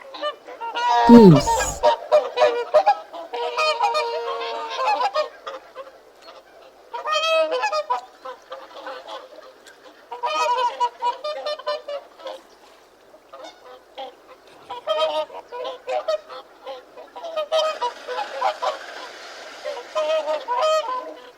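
Geese honking repeatedly, in irregular clusters of calls with short gaps between them.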